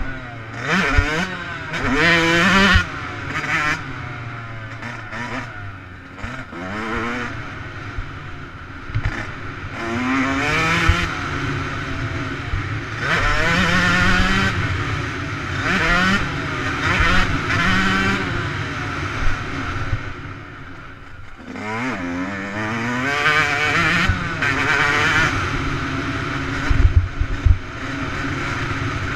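Dirt bike engine on the track, revving up through the gears again and again, its pitch climbing in steps and falling back as the throttle is eased, with wind and rattle over the camera. A few low thumps near the end.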